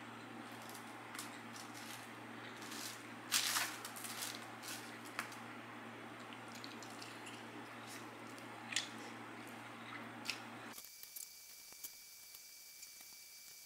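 Close-miked eating with the hands: fingers picking through fries and rice in a foil-lined tray, and chewing, heard as scattered small squishy clicks and smacks, with the loudest crackle about three seconds in. A steady background hum and hiss cut out suddenly near the end, leaving only faint clicks.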